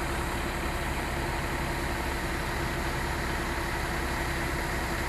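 Corn combine harvester's engine running at a steady speed, a constant low drone with a steady hum and no change in pitch.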